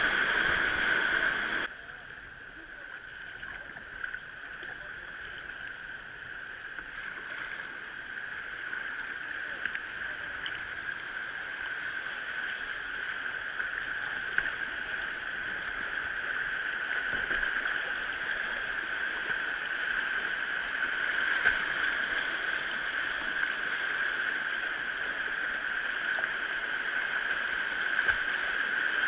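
Steady rush of stream water, a constant hiss that drops abruptly about two seconds in and then slowly grows louder.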